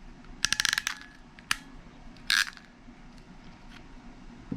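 Ratcheting RJ45 crimp tool clicking in a quick run as its handles are squeezed on a pass-through connector, then a single click and a short sharp snap.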